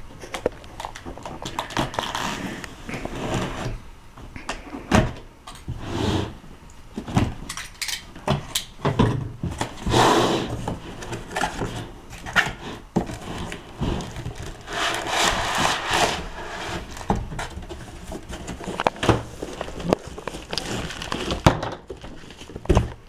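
Cardboard laptop box being opened by hand and its packed contents pulled out: a string of knocks and taps with scraping, rustling stretches of cardboard and wrapping.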